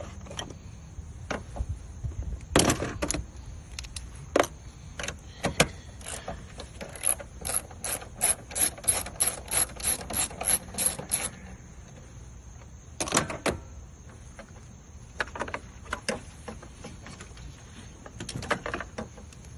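Hand ratchet wrench clicking on the alternator bolts, in short bursts and with a steady run of about three clicks a second near the middle, along with scattered knocks of metal tools and parts.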